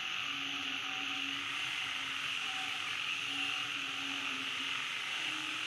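Steady high-pitched drone of an insect chorus, with short low hums coming and going several times.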